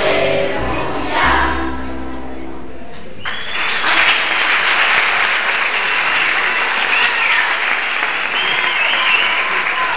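A group of children singing the last phrases of a song over backing music, which stops abruptly about three seconds in; an audience then applauds.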